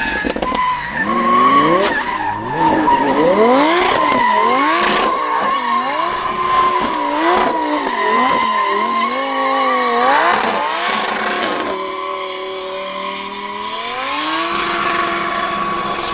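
Lamborghini Huracán drift car's engine revving up and down in quick swoops as it spins donuts, over a steady, high-pitched tyre squeal. About twelve seconds in the engine holds a steadier note, then climbs again as the car drives away.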